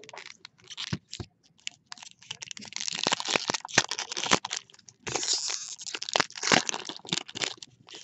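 Plastic and foil packaging of a box of hockey cards being torn open and crinkled by hand. Scattered sharp cracks and clicks build into two longer stretches of crinkling about three and five seconds in.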